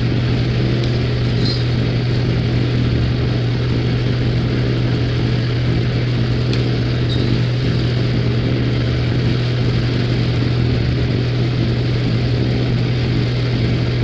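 A steady, unbroken diesel engine drone with a strong low hum from the 33-ton truck-mounted crane, running during the lift.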